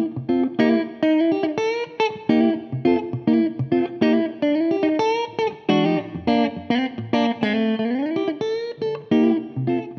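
Outro music: an electric guitar plays a run of picked notes, with a slow string bend upward a little past the middle.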